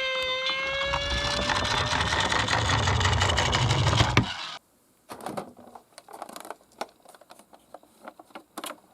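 Toy minicars rattling as they roll down a slope, a dense clatter with a low rumble, while a siren fades out in the first second or two. The clatter cuts off abruptly about four and a half seconds in, followed by scattered light clicks and taps.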